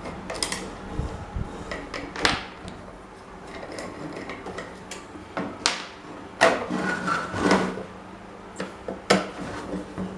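Irregular knocks, clacks and metallic clinks of fan parts and tools being handled on a work surface, the sharpest about six and a half and nine seconds in, over a faint steady hum.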